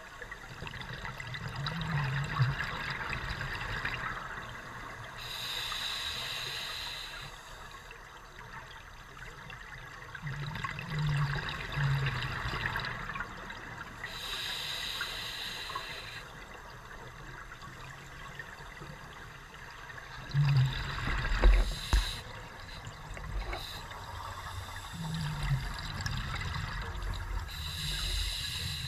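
Scuba diver breathing through a regulator underwater: a hissing inhalation about every nine seconds, with bursts of bubbling exhaled bubbles in between. A few loud knocks with a deep rumble come about two-thirds of the way through.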